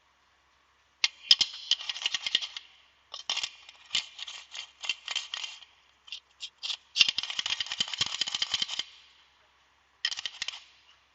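Ceiling fan ball bearings rattling and clinking against metal while being handled for cleaning, in four bursts of rapid clicks. The bursts come about a second in, around three to six seconds, around six to nine seconds, and a short one near the end.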